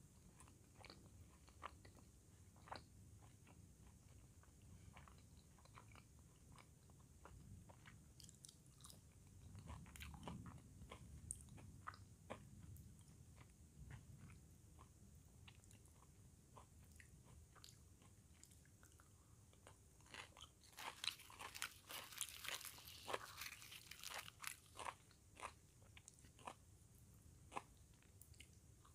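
A person eating with close-up mouth sounds: quiet chewing with scattered small clicks, and a run of sharp, crisp crunches about three-quarters of the way through.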